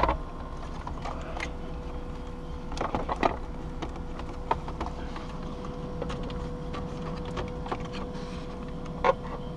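Plastic centre dash trim panel being handled and worked loose, with scattered light clicks and knocks, a small cluster about three seconds in and a sharper knock near the end, over a steady low hum.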